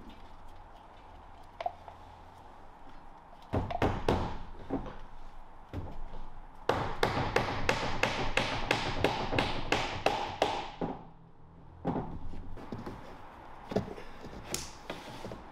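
A quick run of about fifteen sharp, evenly spaced taps, roughly four a second for some four seconds, with a few scattered knocks before and after.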